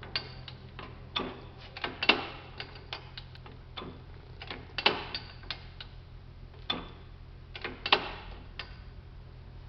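Logan metal lathe's 3-phase motor and drive running with a steady low hum, while about a dozen sharp metallic clicks and clanks sound at irregular intervals.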